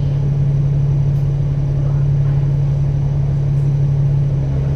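Bus running on the road, heard from on board: a steady low engine hum with road rumble underneath.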